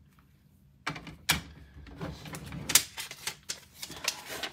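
Hard plastic PSA graded-card slabs clicking and clattering as they are handled and set down on a table. An irregular run of sharp clicks and knocks starts about a second in.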